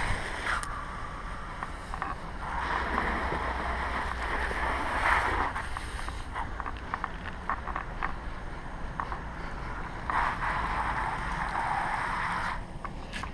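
Garden hose spray nozzle spraying water onto potted plants and soil, the hiss coming and going in stretches of a few seconds, over a low rumble of wind on the microphone.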